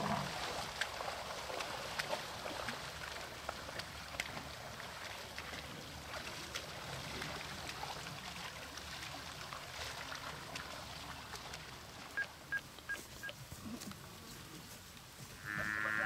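Faint open-air bush ambience with scattered small clicks. About twelve seconds in come four short high pips, and just before the end a Cape buffalo starts a wavering, bleating call.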